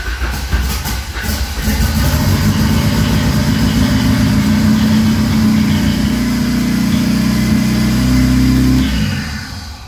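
Turbocharged Ford Escort engine starting for the first time after its rebuild: a second or so of uneven cranking and catching, then it runs steadily at a high idle through an open exhaust, fading away near the end.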